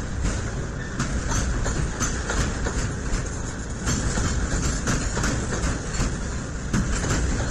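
Container freight train's loaded flat wagons rolling past close by: a steady rumble of steel wheels on rail with repeated clacks, a few a second, as the wheels cross rail joints.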